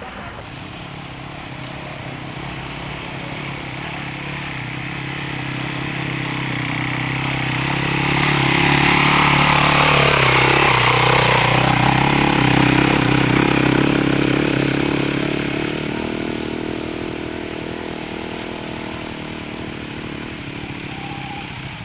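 Trail motorcycle engine running under throttle as it climbs. It grows louder to pass close by about ten seconds in, its pitch dipping as it goes past, then fades as it moves away.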